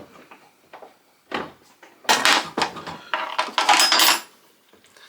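Clattering and scraping of metal table-saw parts and tools being handled, in uneven bursts that grow loudest in the second half, with a brief metallic ring.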